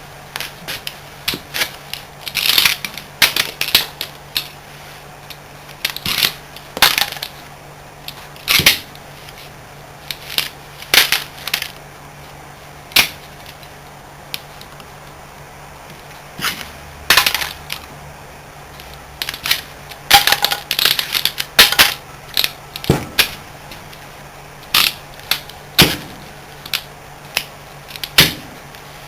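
Irregular sharp clicks and metallic clinks, singly and in quick clusters, from copper windings being cut and worked out of a scroll compressor's stator. A faint steady low hum runs underneath.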